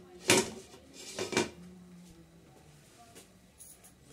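Metal ladle clinking against the side of a cooking pot while stirring: three sharp clinks in the first second and a half, the first the loudest.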